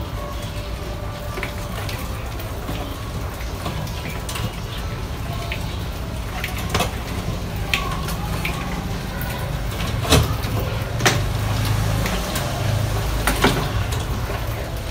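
Small rodents scrabbling over and dropping into a glass-tank trap: scattered sharp knocks and taps against the glass and tile, the loudest about ten and thirteen seconds in, over a steady low rumble.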